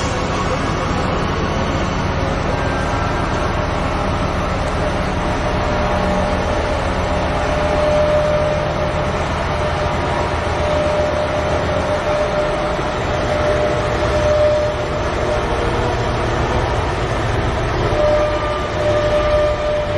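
Twin diesel engines of a BelAZ 75710 giant mining dump truck running with a steady heavy rumble as the truck moves slowly. A higher steady tone comes and goes in the second half.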